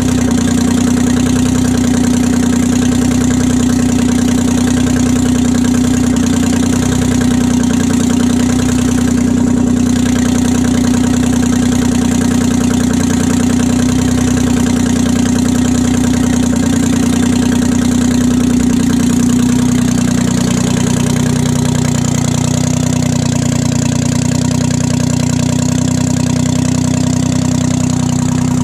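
Freshly rebuilt 1968 Detroit Diesel 3-53T, a three-cylinder turbocharged two-stroke diesel, running steadily on its first run after a total overhaul. Its note changes slightly about twenty seconds in.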